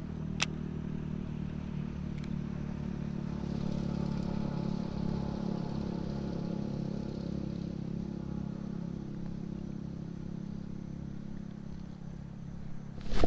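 Steady low drone of an engine running, with a single sharp click about half a second in.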